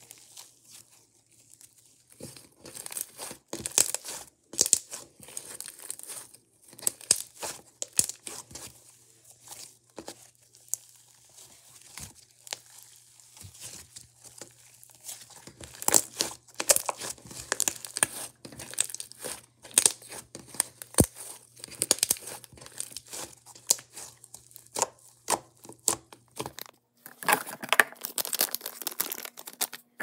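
Hands kneading and squeezing blue slime: a fast, irregular run of crackles and small pops as it is pressed and pulled, thickest near the end.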